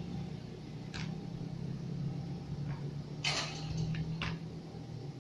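Low steady electrical hum with a few faint clicks; the loudest, a short sharp click, comes about three seconds in.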